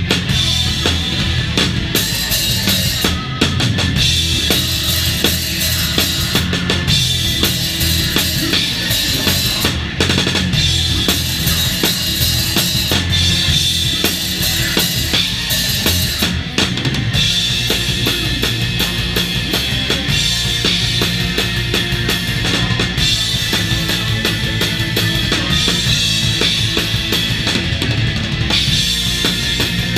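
Live rock band playing, heard from right beside the drum kit, so the drums are loudest: kick drum, snare and constant cymbals over the band.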